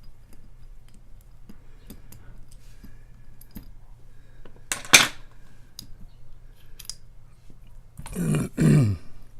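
Light metallic clicks and taps from a just-picked padlock being handled, with one sharp, louder clack about five seconds in. Near the end a person makes two short vocal sounds that fall in pitch.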